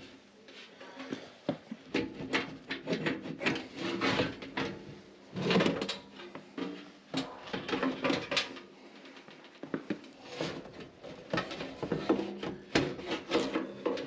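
Blower housing of a furnace air handler being slid back into its sheet-metal cabinet: irregular metal knocks, clunks and scrapes.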